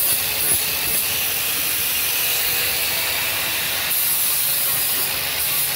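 Electric angle grinder with a sanding disc running steadily against wood with a hissing whine, sanding flush a mitred 45-degree joint that didn't line up.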